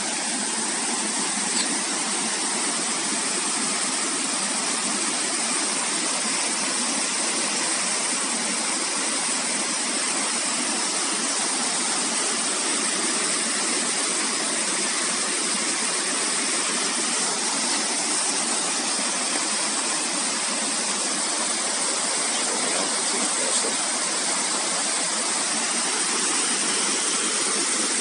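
Waterfall, white water cascading over rock ledges in a steady, loud rush of noise.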